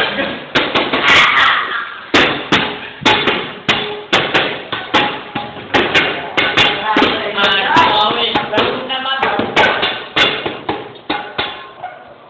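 A string of loud knocks or bangs, about two a second, mixed with people's voices and shouting, dying away near the end.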